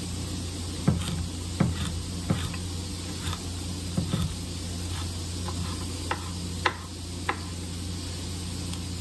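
Food sizzling in a frying pan while a homemade spatula stirs it, scraping and tapping against the pan about ten times, more often in the first half.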